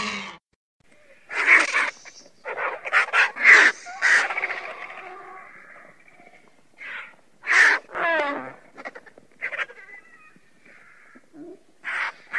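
Griffon vultures calling: a string of short, harsh, hoarse calls with pauses between them, and one wavering pitched squeal about eight seconds in.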